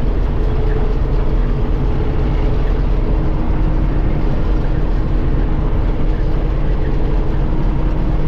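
Old John Deere 4400 combine running steadily: a constant loud engine and machinery drone with a deep low rumble.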